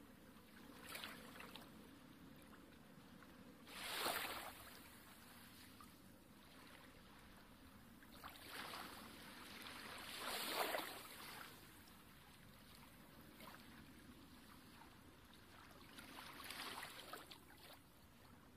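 Faint wash of water on a tidal shore. Soft swishes swell and fade a few times, the strongest about four seconds in and another around ten to eleven seconds.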